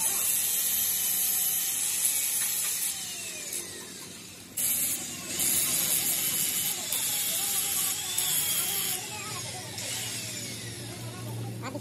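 Angle grinder grinding the steel of a Fiat 480 tractor clutch pressure plate, its pitch sliding up and down as the disc bites. The grinding hiss drops out about three seconds in and comes back about a second and a half later.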